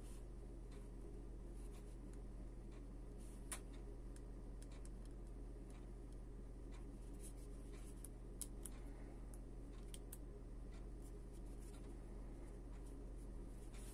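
Faint handling noise from a pocket gimbal camera turned in the hands: scattered small clicks and taps, the sharpest about three and a half seconds in and again near the middle. A steady low hum runs underneath.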